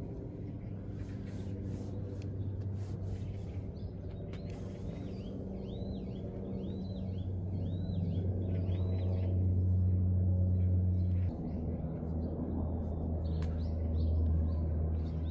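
A bird calling a run of about six rising-and-falling chirps, over a low steady drone that shifts in pitch about eleven seconds in.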